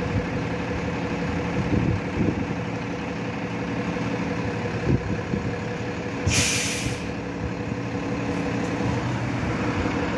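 City bus engine idling with a steady hum. About six seconds in, a short sharp hiss of its air brakes releasing.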